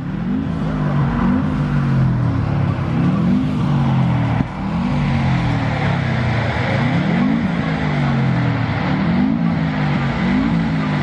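Lamborghini Aventador LP700-4's V12 engine running and being revved in repeated short blips, the pitch rising and falling about once a second.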